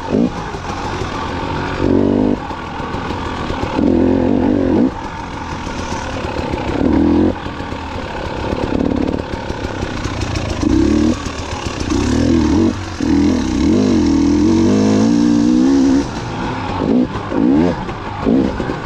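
2019 KTM 300 XC-W two-stroke dirt bike engine being ridden, revving up and falling back in repeated throttle bursts every second or two, with one longer held burst near the end.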